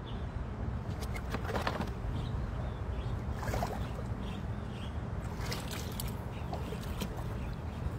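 Shallow water splashing and sloshing as a person wades and reaches among rocks in the stream bed, with a few louder splashes, over a steady low rumble.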